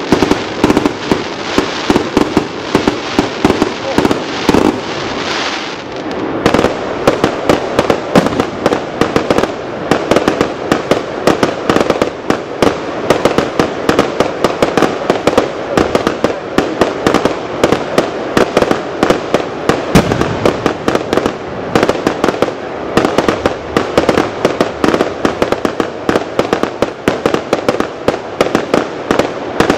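Aerial fireworks going off in a rapid, near-continuous barrage of bangs and crackles, several every second, from shells and rising tails fired together.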